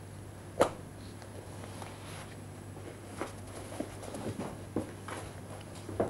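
Soft, scattered footsteps and light knocks over a steady low hum, with one sharp knock about half a second in.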